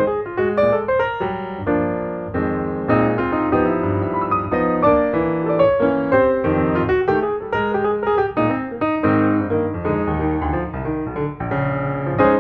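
Background piano music, a run of notes played at a steady pace.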